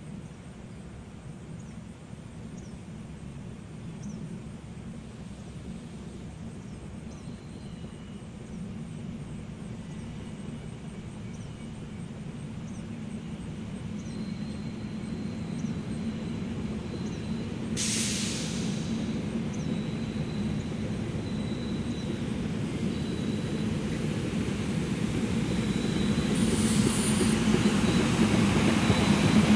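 SEPTA Silverliner IV electric multiple-unit train approaching and passing, its rumble steadily growing louder. A thin high-pitched tone comes and goes, and there is a short hiss about two-thirds of the way through.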